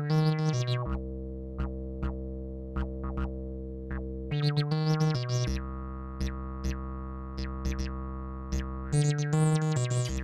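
Eurorack modular synthesizer playing an acid jam with the Acidus Versio 303-style voice. A low held bass tone runs under short ticking percussion hits, and a quick phrase of stepping synth notes comes back about every four and a half seconds.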